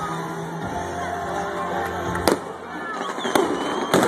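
Fireworks going off: a few sharp bangs, the loudest a little past halfway and a quick pair near the end, over music and crowd voices.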